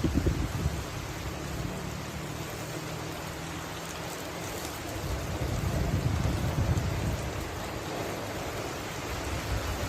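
Heavy rain falling in a steady hiss, with deep low rumbles near the start and again around the middle.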